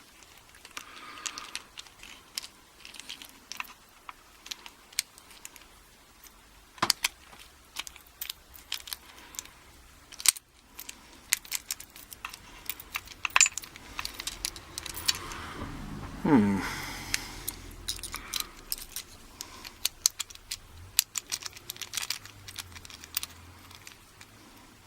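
Small metal clicks, taps and rattles as a stuck key and the lock core are worked loose from a partly disassembled American Lock A1100 padlock, with a brief sliding sound that falls in pitch about two-thirds of the way through.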